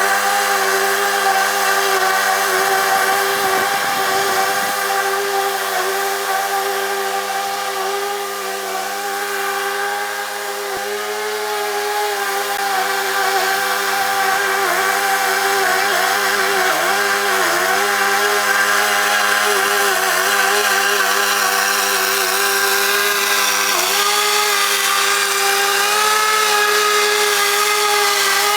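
Mower engine running steadily, its pitch dipping briefly a few times as it takes load while cutting.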